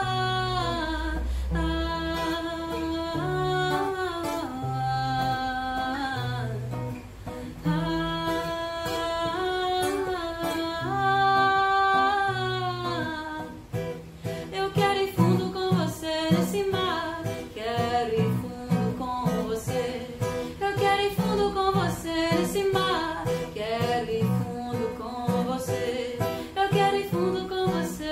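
Music: sung melody in long held notes over a stepping bass line, joined about halfway through by busy acoustic guitar strumming.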